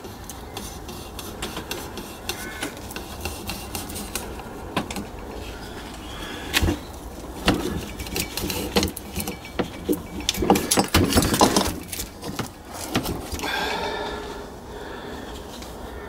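Scattered metal clicks, knocks and scrapes as a rusty finned cylinder barrel is worked up off a small moped engine's crankcase and handled on the bench, with the busiest run of sharper knocks in the middle.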